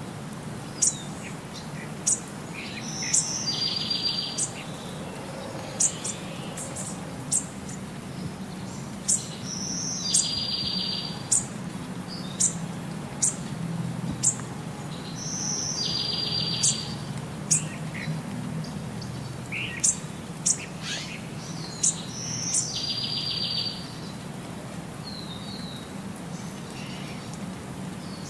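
Birds chirping: short, sharp high chirps about once a second, with a buzzy high trill that comes back every six or seven seconds in the same form, as in a looped birdsong recording.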